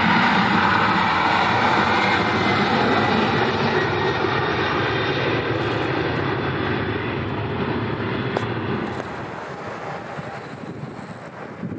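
Boeing 747 taking off, the noise of its four jet engines at take-off power fading steadily as the aircraft climbs away.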